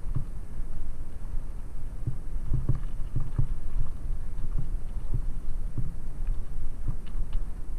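Bicycle rolling along a gravel dirt track, heard from a camera on the rider: a steady low rumble of tyres and wind, with irregular knocks and rattles as it goes over bumps.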